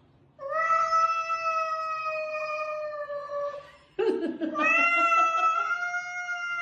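Cat yowling at another cat in two long, drawn-out calls held at a steady pitch. The second call starts about four seconds in. This is a warning yowl while it paws at the other cat.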